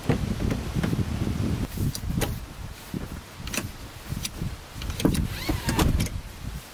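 A run of clicks and clunks from a Kia Niro Hybrid's rear side door and second-row seatback latch as the seat is folded down flat, with a short rising squeak about five seconds in, over a low rumble of wind on the microphone.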